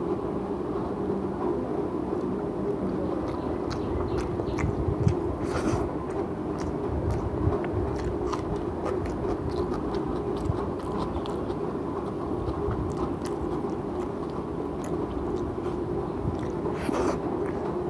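Close-up chewing of mutton biryani, with many small wet mouth clicks and a couple of brief scraping noises, over a steady low hum.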